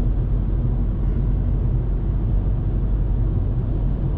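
Steady low drone heard from inside the cabin of a 2019 Volkswagen Polo while driving. The 1.0-litre three-cylinder turbo petrol engine runs under the rumble of road and tyre noise.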